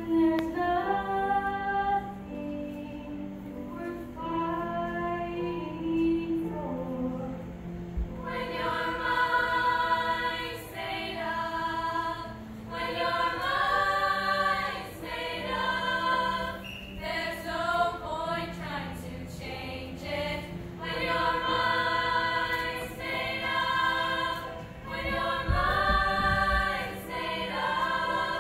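Girls' choir singing in harmony. A single voice leads at first, and the full choir comes in about eight seconds in, making the sound much fuller.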